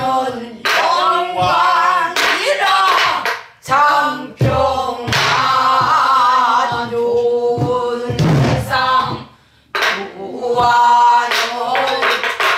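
A group of voices singing a Korean folk-style song together, their long held notes wavering, accompanied by soribuk barrel drums struck with a stick and the palm in the slow jungmori rhythm. A few sharp drum strokes stand out above the singing.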